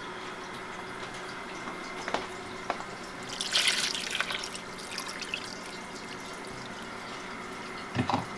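Water poured from a plastic measuring cup into a roasting pan of gravy and rabbit pieces, a splashing pour lasting about a second. Two light clicks come before it.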